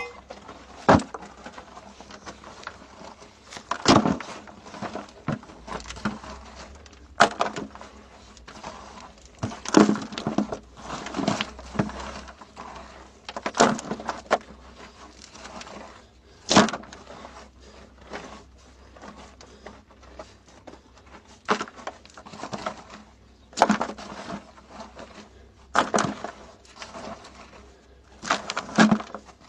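Loose soil and gravel scraped up by gloved hands and dropped into a bucket: irregular scrapes and gritty clatters, a dozen or so, every couple of seconds.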